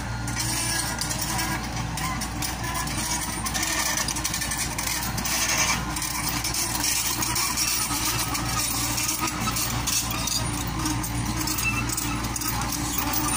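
Komatsu PC70-8 excavator's diesel engine running steadily with a constant low hum.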